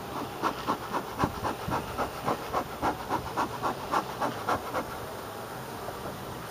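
Bee smoker's bellows squeezed in quick succession, giving short breathy puffs of air and smoke, about four or five a second. The puffing goes on for about four and a half seconds, then stops.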